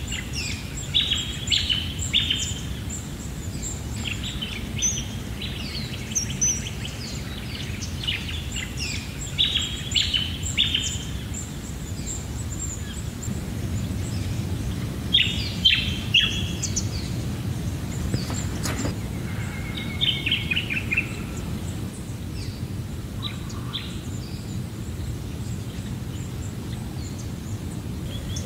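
Several birds chirping and calling in quick runs of repeated notes, busiest in the first ten seconds and in bursts later on, over a low steady background rumble.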